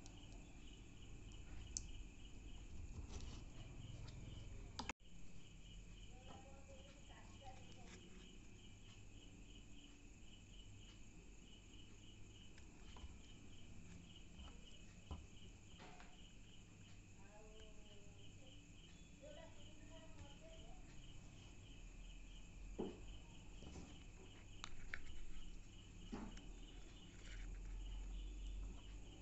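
Faint cricket chirping: a steady, even run of short pulses, about four a second, with a few soft clicks scattered through it.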